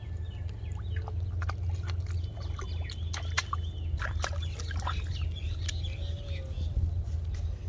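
A hooked fish flapping and thrashing on wet grass, a run of short slaps and rustles that grows busiest in the second half, with bird calls chirping behind it over a steady low hum.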